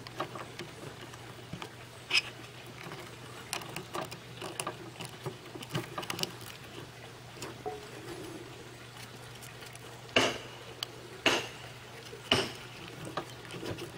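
Sandpaper rustling and crinkling as it is folded and pressed around a small wooden pocket sanding block, with light taps and clicks of handling. Three sharper clicks come near the end.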